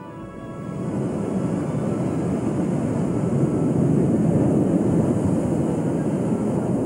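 Rough sea: waves breaking and washing onto a pebble beach, a steady, heavy rumbling wash that swells up over the first second.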